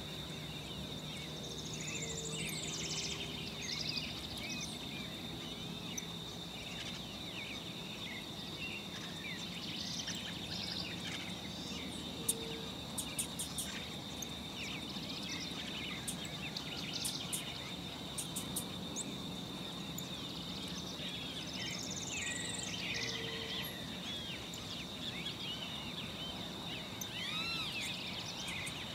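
Natural countryside ambience: a steady high-pitched insect buzz under a busy chorus of small bird chirps. Two louder rising-and-falling bird calls stand out, one a couple of seconds in and one about twenty-two seconds in, with a few sharp clicks near the middle.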